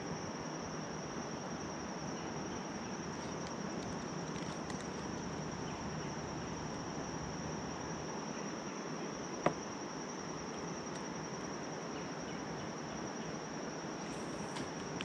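Steady high-pitched chorus of insects over a soft background hiss, with a single sharp click about nine and a half seconds in.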